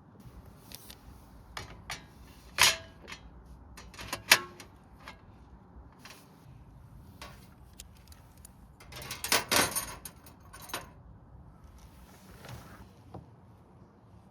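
Objects being handled: scattered clicks and knocks, two sharp knocks about 2.5 and 4 seconds in, and a short burst of rattling clatter around 9 to 10 seconds in.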